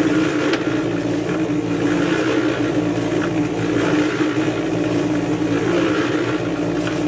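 Harbor Freight electric cement mixer running steadily, its drum turning a batch of concrete.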